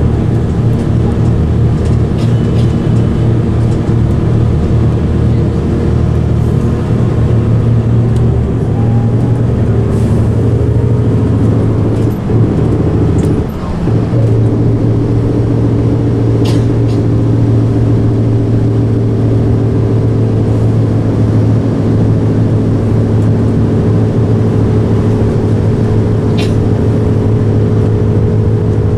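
Volvo B10M-55 bus's underfloor six-cylinder diesel engine running under way, heard from inside the passenger saloon, with a steady engine note. About halfway through the note dips briefly twice and settles again, as the ZF Ecomat automatic gearbox changes gear. A few sharp rattles from the body come through now and then.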